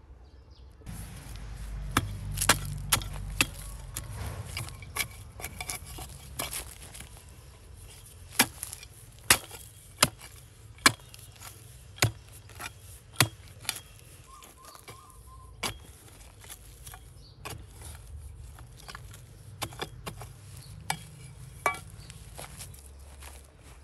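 A metal digging blade stabbing and chopping into hard, dry soil to dig a planting hole: a run of sharp, irregular strikes, roughly one a second, loudest in the middle.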